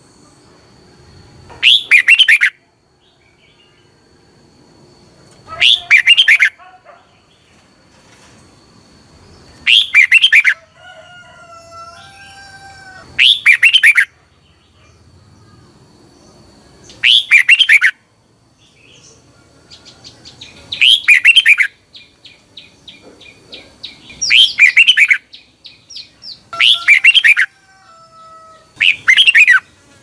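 Red-whiskered bulbul singing loud, short song phrases about every three to four seconds, nine in all, with fainter whistled notes from birds in the background between phrases.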